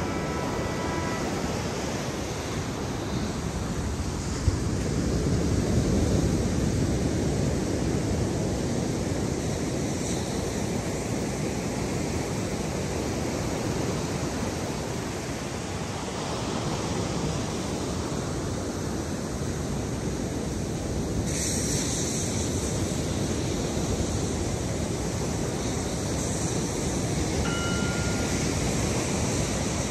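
Steady wash of ocean surf with wind rumbling on the microphone, swelling and easing without a break.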